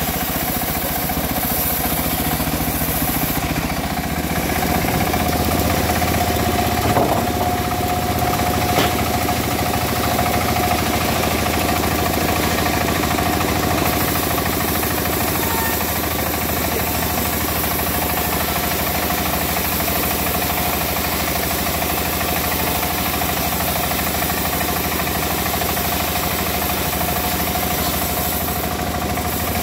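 Petrol engine of wood-cutting machinery running steadily at a constant speed, with a steady whine over its hum for several seconds near the start and a couple of brief clicks.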